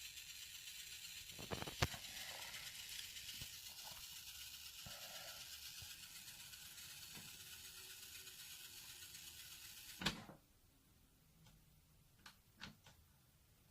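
An HP laptop giving off a steady, faint electrical hiss with a high-pitched whine and a few clicks. About ten seconds in there is a click and the noise cuts off suddenly, as it does when the laptop's power cord is pulled.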